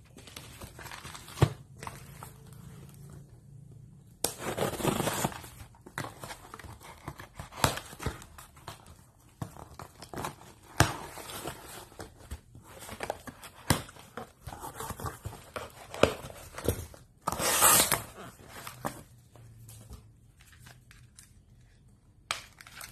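Hands opening a parcel: packing tape and cardboard box flaps tearing, and a plastic bubble-wrap mailer crinkling, with scattered clicks and rustles. Louder bursts of tearing come about four seconds in and again near seventeen seconds.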